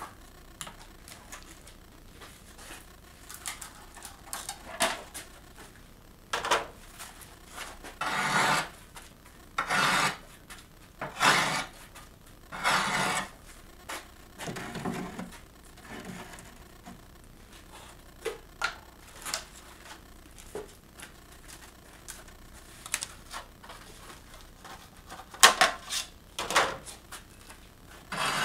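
Cast faux-stone tiles scraping and rubbing against their molds and the worktable as they are demolded and handled, in a series of separate rasping strokes, each under a second. Several sharp clicks and knocks come near the end.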